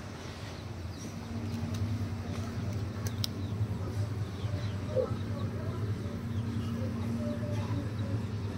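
Outdoor background: a steady low rumble with a held hum, and faint, scattered bird chirps.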